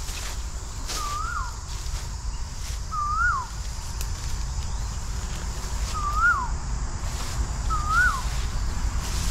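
A bird repeating the same short clear call four times, about two seconds apart; each call rises and then drops sharply. A steady low rumble runs underneath.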